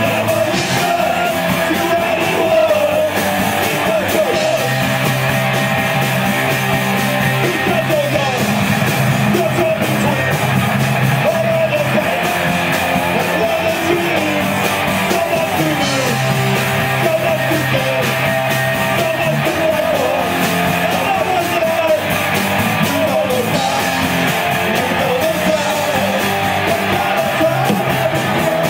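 Live punk rock band playing loudly: guitars and drums with a vocalist singing into a microphone.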